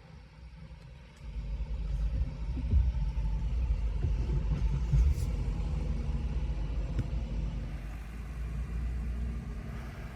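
Low, steady rumble of a vehicle driving, coming in about a second in.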